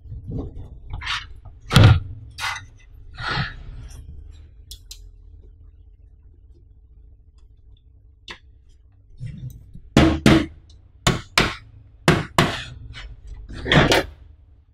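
Hands handling a black Alcatroz Futura Black N2000 PC tower case: scattered taps and rubbing against its panels, then a quieter few seconds, then a run of sharp knocks about ten seconds in.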